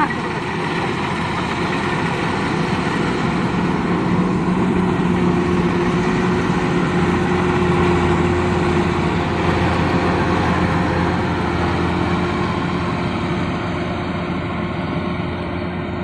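Kubota DC-93 combine harvester running as it cuts rice: a steady engine drone mixed with the rattle of its machinery, loudest about halfway through as it passes close.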